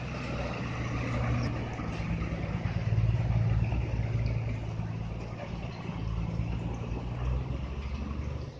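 Heavy vehicle's diesel engine running with a low, pulsing note, getting louder about three seconds in and dropping off at the end.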